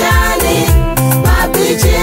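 Swahili gospel song playing, a stretch without sung words: a bass line and a steady drum beat under layered keyboard or guitar notes.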